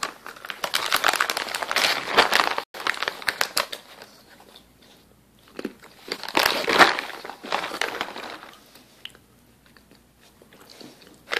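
A plastic snack pouch of whole raw cashews crinkling as it is handled, in two spells of crackling about three seconds each, with a quiet gap between.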